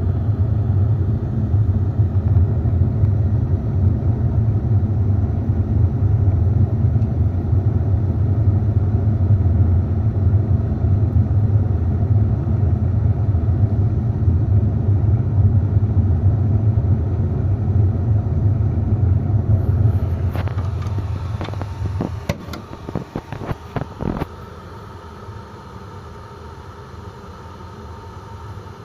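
Pyrolysis boiler running on its draft fan: a loud, steady low rumble. About twenty seconds in it falls away to a quieter steady hum, with a short run of clicks and knocks as it drops.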